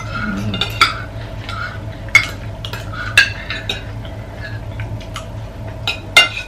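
Spoons and forks scraping and clinking against plates as several people eat, with a few sharp clinks spread through.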